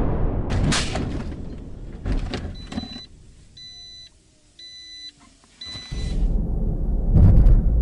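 A car's warning chime beeps four times, evenly spaced, in the cabin of a just-crashed car with its airbag deployed, after a fading roar and a couple of knocks. Then steady engine and road noise of a car driving, with a loud knock near the end.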